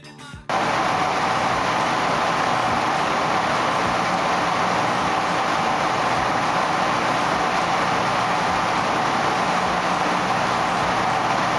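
Washing machine running: a steady, even whirring noise with a faint low hum under it, cutting in sharply about half a second in.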